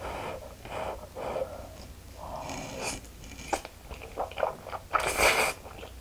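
Close-up mukbang eating sounds: a person chewing and slurping thick, cheese-coated spicy instant noodles, with wet mouth clicks and one louder slurp about five seconds in.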